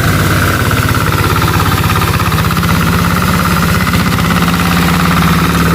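Farm tractor engine running steadily as the tractor is driven, with a fast, even beat of firing strokes.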